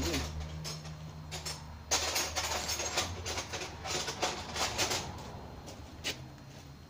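Irregular clinks and clatter of metal hand tools being handled while a small wrench is picked up for the gearbox shift-fork bolt, busiest in the middle, over a faint low steady hum.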